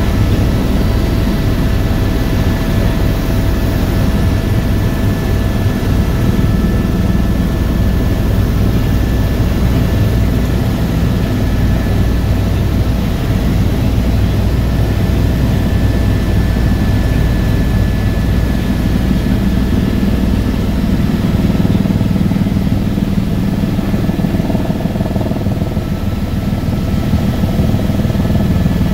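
Helicopter in flight heard from inside the cabin: a steady rotor and engine drone with a thin, constant whine above it.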